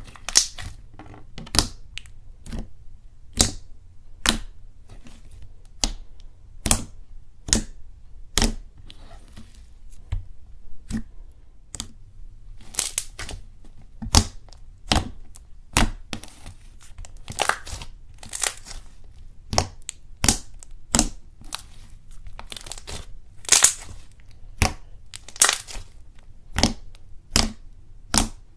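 A hand squeezing and kneading a thick slime, with sharp, irregular clicking pops about once or twice a second as trapped air pockets burst under the fingers.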